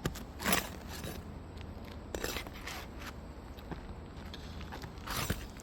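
Pry bar scraping against roof shingles and a roofing nail as the nail is worked loose, in a few short scrapes, the loudest about half a second in and another just after five seconds.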